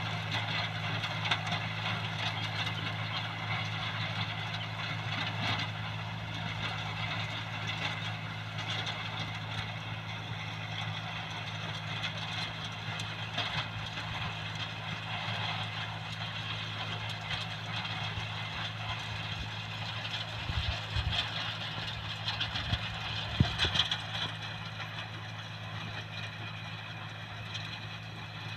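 Tractor engine running steadily while working a field with a rotary tiller, with a few louder knocks about three-quarters of the way through.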